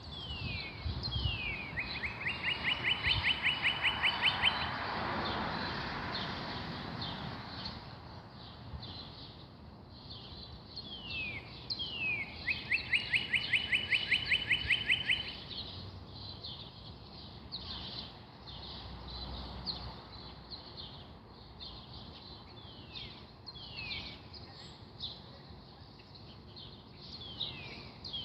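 A songbird singing twice, each song two quick falling notes followed by a fast, even trill of about fifteen notes. Other birds chirp constantly around it, and a rushing noise swells and fades during the first song.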